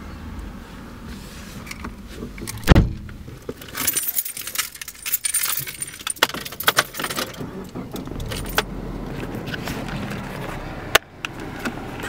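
A bunch of car keys on a ring jangling where they hang in the ignition, with knocks and clicks of handling inside a car; one heavy thump about three seconds in is the loudest sound, and the jingling is busiest a little after it.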